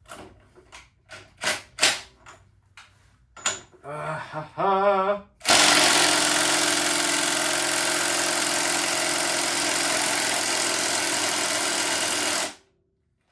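A few light clicks and knocks of handling, then a short whirr and a cordless impact wrench hammering steadily for about seven seconds before cutting off abruptly. The wrench is working against a seized fork bolt that does not turn.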